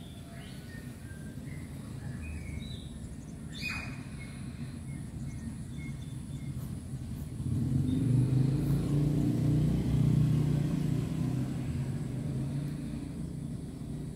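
A motor vehicle's engine rumbling as it passes, growing louder about halfway through, loudest for a few seconds, then fading away. Birds chirp briefly in the first few seconds.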